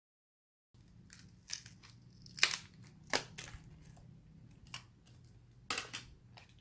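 Adhesive crackling and snapping as the glued glass back of a Samsung Galaxy S7 is pried off: a series of sharp crackles, the loudest about two and a half seconds and six seconds in.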